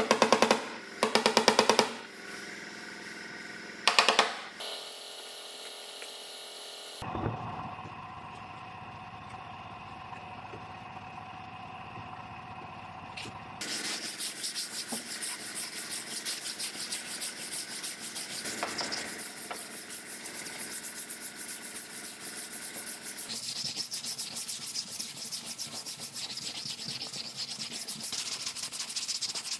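Sandpaper rubbing by hand over body filler on a car hood, a fast run of scraping strokes from about halfway on. Near the start, a few loud knocks of a body hammer on the hood.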